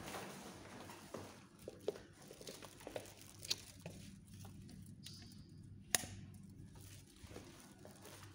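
Handling noise from a handheld phone: fabric brushing over the microphone and scattered light taps and knocks, with one sharp click about six seconds in.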